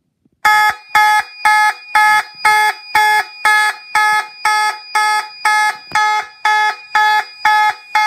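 Fire alarm horn sounding in march time: evenly pulsed tones at about two a second, starting about half a second in, as the system goes into alarm from a pulled pull station.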